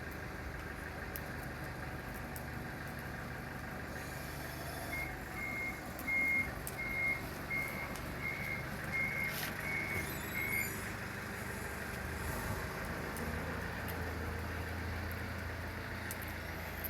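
A vehicle's reversing alarm beeping about twice a second for some five seconds, starting about five seconds in, over a steady low engine rumble, with a few short sharp pops.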